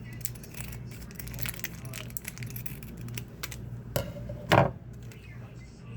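Plastic ramen sauce packet being torn open and squeezed out, crinkling with many small crackles, with one louder thump about four and a half seconds in, over a steady low hum.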